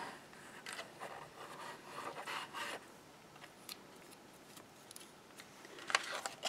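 Faint rubbing of a glue tube's nozzle across card as all-purpose adhesive is squeezed out and run over the paper, in uneven strokes over the first few seconds, with a short rustle near the end.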